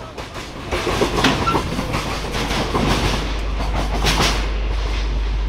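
Container wagons of a long freight train rolling slowly past at close range, their wheels clicking and clattering over the rail joints, with one brief squeal about a second and a half in.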